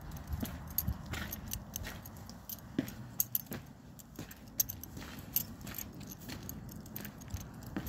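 Keys jingling as someone walks, with scattered clicks and a low uneven rumble of wind on the microphone.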